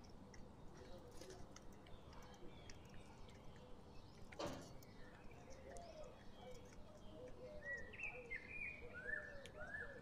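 Feeding birds calling faintly: low repeated curving notes throughout, with a cluster of short, high, down-slurred chirps near the end. Light clicks of beaks pecking food on concrete run through it, with one sharper knock about four and a half seconds in.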